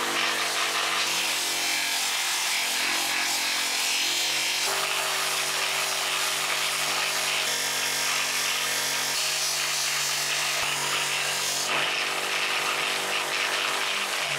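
Bench polisher running, its cotton buffing wheel rubbing against a small metal part held to it in pliers: a steady motor hum under a loud hiss of polishing. The hum's tone changes abruptly a few times.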